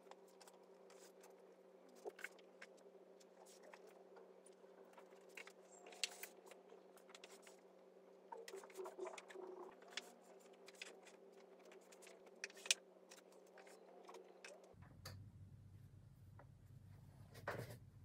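Faint, scattered knocks, taps and shuffles of hardback and paperback books being pulled out, stacked and set back on white IKEA Kallax cube shelves, with a few sharper knocks. A steady low hum runs underneath.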